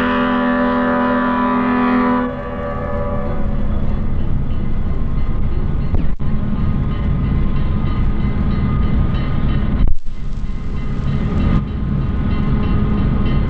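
An EMD E9 diesel streamliner's air horn sounds a steady chord for about the first two seconds, then the locomotive's engine rumble and running noise continue as the train approaches. The sound drops out briefly twice, about six and ten seconds in.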